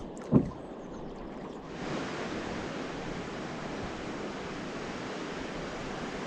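River water rushing steadily, setting in strongly about two seconds in, with a single dull thump just before it.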